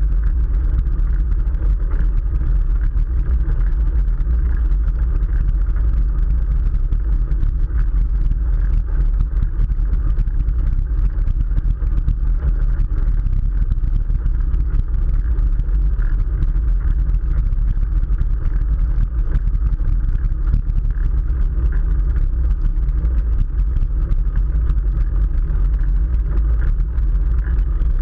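Steady, loud rumble of wind buffeting the microphone of a camera riding along on a moving bicycle.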